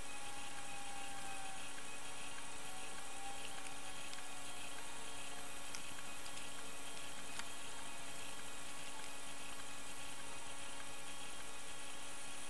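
A steady mechanical hum with constant noise underneath and a few faint clicks.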